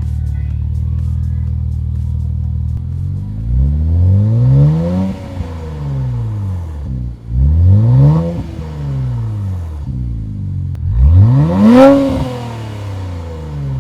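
Infiniti Q50's VR30 3.0-litre twin-turbo V6 through a Stillen cat-back exhaust, idling steadily and then revved three times, each rev falling back toward idle, the third rising highest and loudest.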